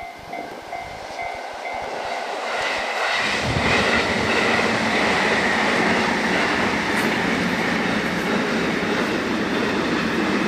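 Japanese level-crossing bell ringing in a quick repeating two-tone pattern, which stops after about two seconds. Then a JR Kyushu electric train passes close by, its running noise rising about three seconds in to a loud steady rush of wheels on the rails.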